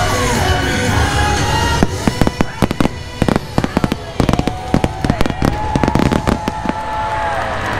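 A rapid volley of fireworks bangs and crackles, thickest from about two seconds in, over the show's music soundtrack with held, gliding notes.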